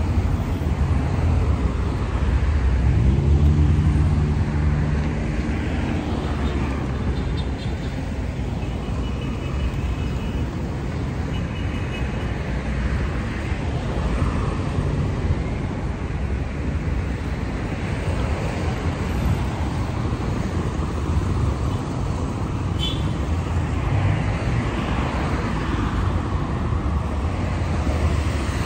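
Steady road traffic passing, a continuous rumble of car engines and tyres. About three seconds in, one vehicle's engine note rises as it accelerates.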